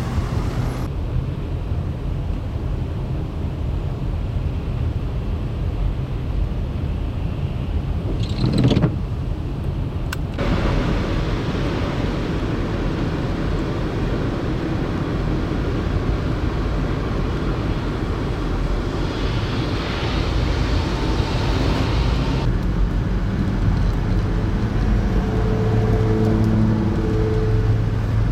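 Road vehicles running and passing: a steady low rumble of engines and tyres that changes abruptly several times. Near the end a steady pitched engine hum joins in.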